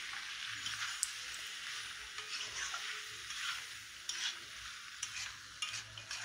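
Chicken pieces sizzling in oil and spice paste in a metal kadai, a steady hiss, while a metal spatula stirs them and scrapes against the pan in frequent short strokes. The meat has released its water and oil into the masala.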